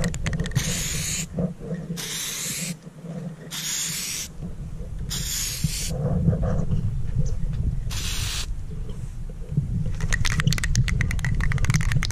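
Aerosol spray paint can spraying in five short bursts of hiss, each under a second long, over a steady low rumble. A run of quick clicks follows near the end.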